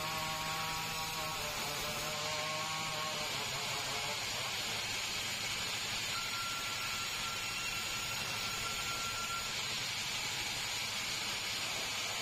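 Sawmill machinery running steadily: an even hiss, with a whine that fades out about three seconds in and a thin high tone from about six to nine and a half seconds in.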